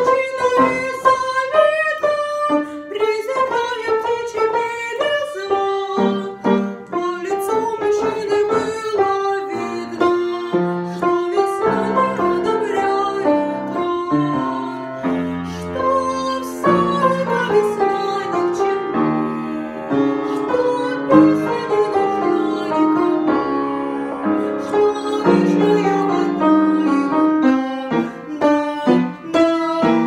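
Young woman singing a Russian song solo over an instrumental accompaniment, her voice carrying the melody.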